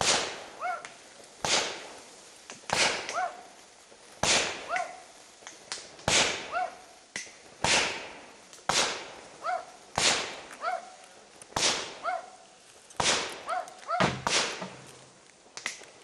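A long run of sharp firework bangs, a little more than one a second and unevenly spaced, each with a short echo. Between the bangs a dog barks in short pitched yelps.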